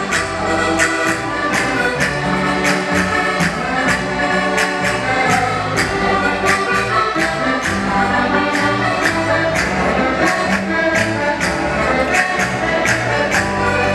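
A live band playing Portuguese dance music, with sustained melody and a steady percussive beat of about three strikes a second.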